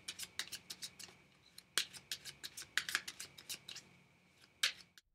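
Fournier 605 playing cards clicking and snapping as the deck is cut and handled between two packets in the hands: a run of sharp little clicks, several a second, stopping shortly before the end.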